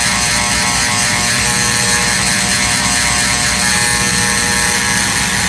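Small handheld corded power tool running steadily without a break, its noise strongest in the high pitches.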